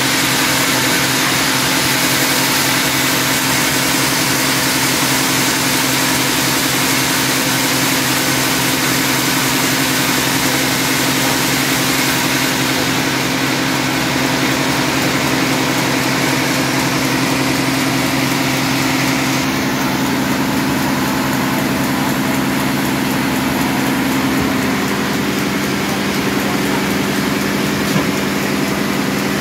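Large band sawmill running steadily with no cut being made, its drive and blade giving a continuous mechanical hum with held tones; the tone shifts about twenty seconds in.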